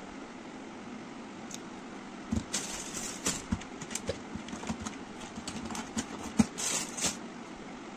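A run of short clicks, taps and brief scuffs over a steady low room hum, starting about two seconds in and stopping about seven seconds in, with one sharper, louder snap near the end.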